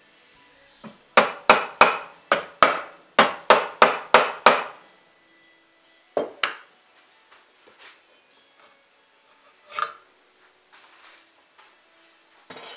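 Quick mallet taps on a barreled rifle action sitting in a partly inletted walnut stock. About a dozen come at roughly three a second, then a couple more and a single knock later on. The taps seat the action so its spotting compound marks the high spots in the inletting.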